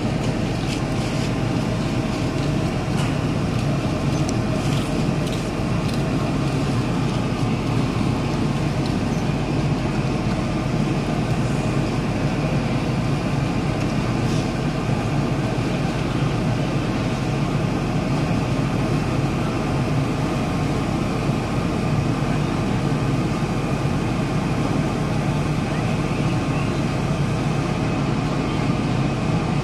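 Steady low engine drone with a constant hum from a moored roll-on/roll-off cargo ship, its machinery running at the quay. Faint voices of people come and go underneath.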